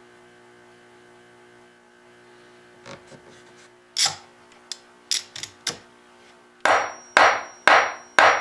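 A few sharp clicks as a bar clamp is fitted over a teak repair piece, then a hammer tapping on the clamped repair, about two evenly spaced strikes a second from a little past the middle.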